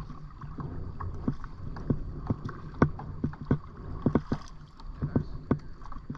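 A kayak being paddled: a steady low water-and-hull rumble with frequent short, sharp clicks and knocks, a few each second.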